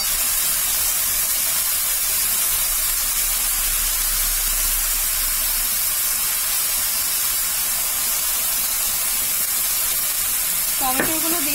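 Pointed gourd and potato pieces frying in hot oil in a pan: a steady sizzling hiss.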